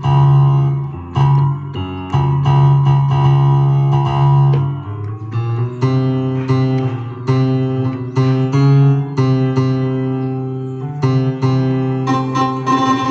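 Music of plucked guitar-like notes and keyboard chords over a steady bass line, with the notes changing every half second or so.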